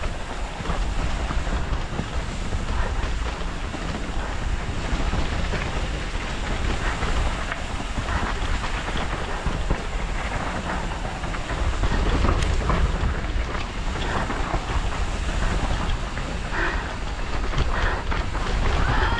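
Downhill mountain bike rattling and clattering over a rough dirt trail, with many short knocks and crunches from the tyres and bike, under heavy wind buffeting on a helmet-mounted camera's microphone.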